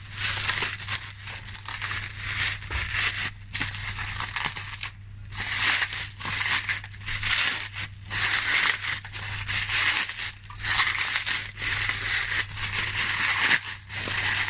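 Packaging crinkling and rustling in irregular stretches with short pauses as a toy is unwrapped and pulled out of its box, over a steady low hum.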